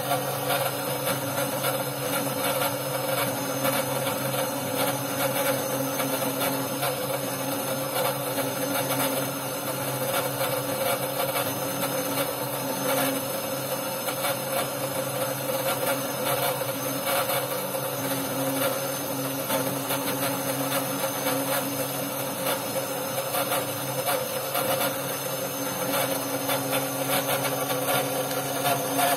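Roland monoFab SRM-20 desktop CNC mill cutting a copper-clad circuit board with a 90° V-bit spinning at 9,000 RPM. A steady spindle tone sits under a continuous gritty scraping as the bit cuts through the copper.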